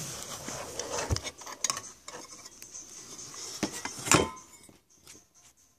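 Handling noise around an opened sheet-metal amplifier case: light metallic clinks and rubbing. The loudest clink comes about four seconds in and rings briefly. It goes quieter near the end.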